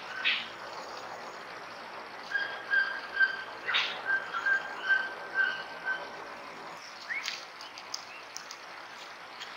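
A bird calling a run of short, evenly pitched whistled notes, about three a second for some three seconds, over a steady hiss of forest background. A sharp click comes just after the start and another in the middle of the run, with a few faint ticks and a short rising chirp near the end.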